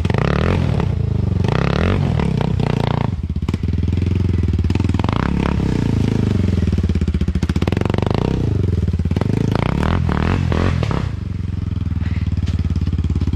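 Honda NX4 Falcon trail bike's single-cylinder four-stroke engine chugging at low revs, opened up in several short throttle bursts as the heavy bike climbs a steep, root-strewn dirt trail.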